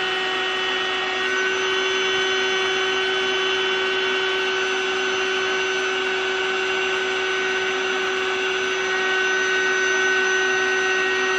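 Electric air pump of a Contour Power Bed (Mattress Genie) inflatable bed wedge running steadily and loudly, inflating the wedge under a heavy mattress. It is a constant motor hum with a high whine that grows stronger about a second in.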